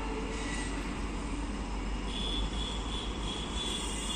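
Distant WDP4D diesel locomotive approaching, its 16-cylinder EMD two-stroke engine and wheels making a steady low rumble. A faint high steady whine joins about halfway through.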